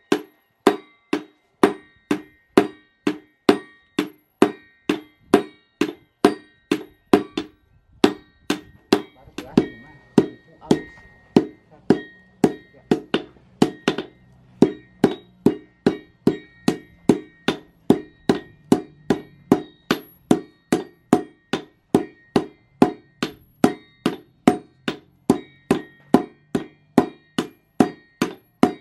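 Hammer forging chainsaw-bar steel on an anvil in a steady rhythm of about two ringing blows a second. The rhythm falters for a moment about eight seconds in, and a low hum runs under the blows from then on.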